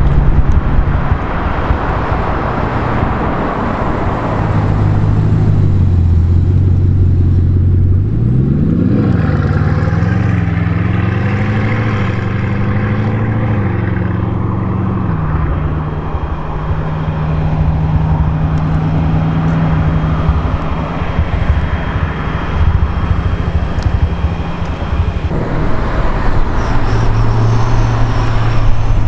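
Bugatti Chiron's quad-turbocharged W16 engine on the road, its note rising and falling through the gears around the middle, then holding a steady tone. Near the end another Bugatti's engine, a Veyron's W16, is heard instead.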